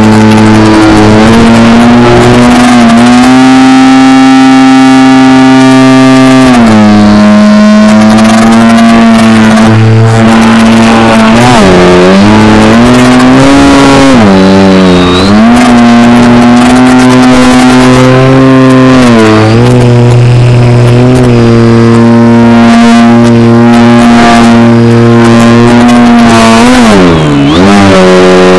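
Motor and propeller of an RC Edge 540T aerobatic plane heard from a camera on board: a loud, steady buzz that mostly holds its pitch, dropping sharply and climbing back a few times as the throttle is cut and reopened, deepest near the end.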